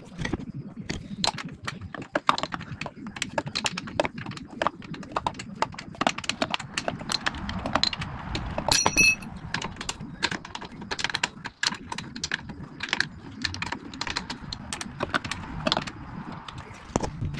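Irregular clicks, taps and clinks of metal hardware and hand tools being handled while assembling a masonry saw, with a short metallic ring about halfway through.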